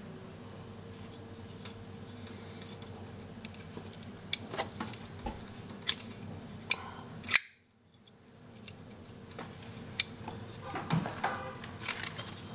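Front flipper folding knife with titanium liners and a blade on caged bearings, being flipped open and shut: a series of sharp metallic clicks as the blade swings and snaps into lockup and the lock is released. The loudest click comes about seven seconds in.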